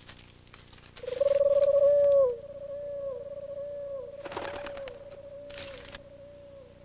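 A long, wavering wind-instrument note that ends in a downward slide, followed by a string of quieter, echoing downward slides repeating about every two-thirds of a second. Two brief rustles come in the middle.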